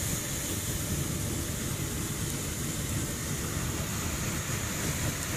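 Steady hissing roar of a propane torch flame, with powdered dry fuel blown by compressed air burning in it.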